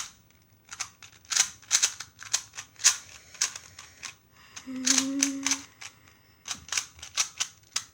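Rubik's cube being turned fast during a timed speedsolve: a rapid, irregular run of plastic clicks as the layers are turned. A brief low hum is heard about five seconds in.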